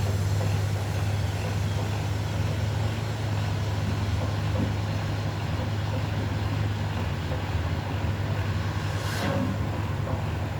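Steady low mechanical hum over background noise, with a brief whoosh about nine seconds in.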